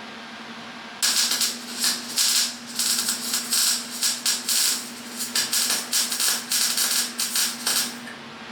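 Arc welding on steel tubing: about a second in, a weld starts and runs for about seven seconds, crackling in quick irregular bursts, then stops, over a steady low hum.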